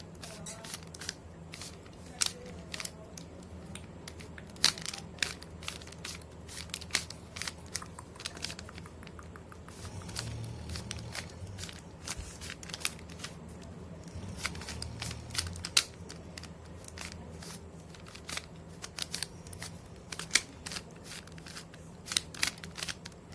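Plastic 3×3 Rubik's cube being turned quickly by hand: a fast, irregular run of clicks and clacks as the layers snap round, over a steady low hum. The cube is old and, to the solver, a little tight.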